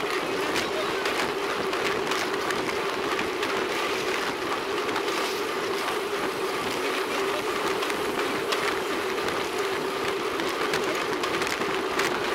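Riding noise picked up by a camera mounted on a road bicycle rolling along a concrete road: a steady rush of tyres and wind with a constant hum, and scattered sharp clicks.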